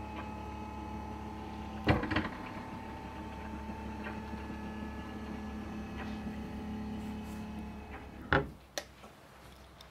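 Electric lift motor of a retractable TV humming steadily as it lowers the set into its wooden cabinet, with a sharp knock about two seconds in. Near the end the hum fades out and two clunks follow as the lift comes to a stop.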